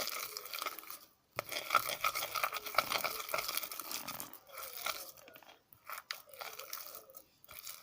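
Wet squelching and crackling of slime made from stationery glue and sodium tetraborate being stirred with a stick as it thickens, with a short break about a second in.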